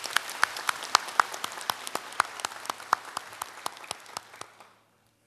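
Audience in a large auditorium applauding, many hands clapping that die away near the end.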